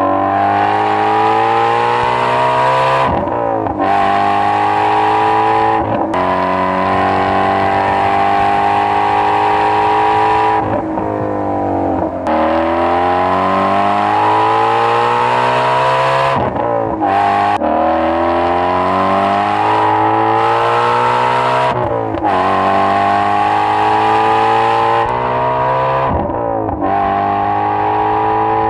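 Ford Mustang Shelby GT350's 5.2-litre flat-plane-crank V8 under hard acceleration, its pitch climbing through each gear and dropping sharply at about eight gear changes.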